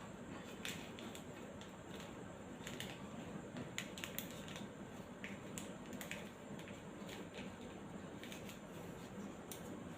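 Faint scattered rustles and soft ticks of a rolled-up paper twist being handled.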